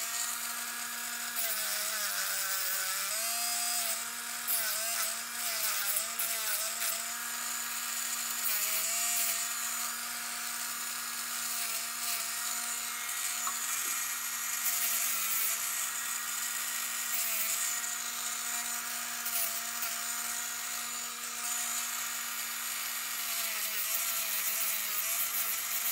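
High-speed handheld micromotor drill (manicure-style) running steadily, its whine sagging briefly in pitch several times under load. A gritty hiss comes from the spinning bit grinding down the sharp edges of a cut fork.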